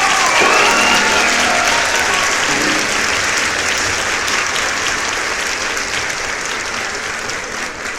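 Crowd applauding, slowly fading out.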